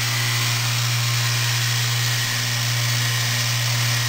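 Three-spindle drill-head motor of an Omal hinge boring machine, running at a steady speed through a boring cycle: an even low hum over a steady hiss.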